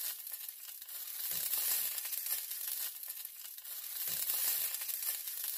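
A steady crackling, sizzling hiss with a soft low thump about every three seconds.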